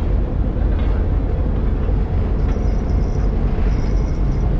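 Fishing boat's engine running steadily while trolling, a constant low drone.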